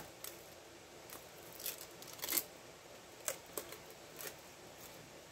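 Thin clear plastic protective film crinkling in light, scattered crackles as it is peeled off a small plastic solar toy airplane.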